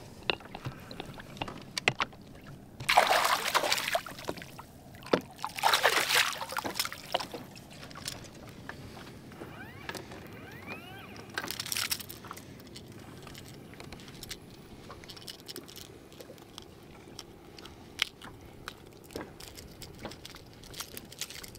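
A hooked largemouth bass splashing and thrashing at the surface beside a boat as it is landed, three loud splashes about 3, 6 and 12 seconds in. Between and after them come small clicks and rattles as the fish is handled and the jerkbait worked out of its mouth.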